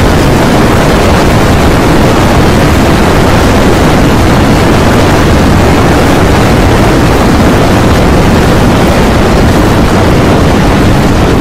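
Stampede sound effect: a loud, steady rumble of many running animals that keeps up without a break.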